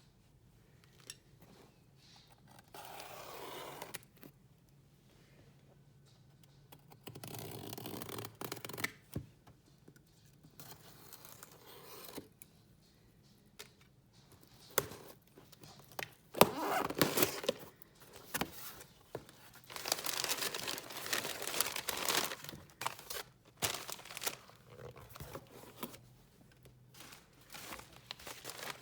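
Packaging being torn open and crinkled by hand, in several separate spells of tearing and rustling with small clicks and taps between them.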